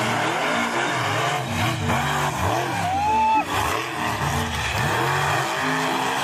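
Two monster trucks racing, their engines revving hard with the pitch repeatedly rising and falling. A brief high squeal sounds about three seconds in.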